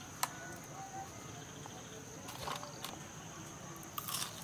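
Steady high-pitched chirring of crickets, with a sharp click just after the start. Near the end comes a crunchy bite into a crispy fried chicken-intestine kebab.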